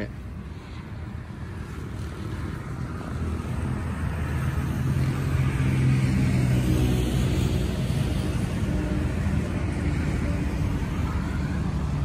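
Ultrasonic fog machines running, their mist-blowing fans giving a steady low hum with airy rushing noise. The hum grows louder through the first half, then holds steady.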